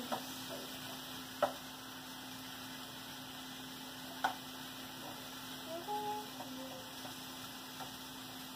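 A steady low electrical hum, with two short clicks of a spatula against a frying pan of diced chicken, about a second and a half and about four seconds in.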